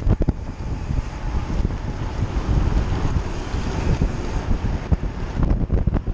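Wind buffeting the microphone of a cyclist's action camera at racing speed, mixed with steady road noise from a bicycle on concrete, with a few brief knocks.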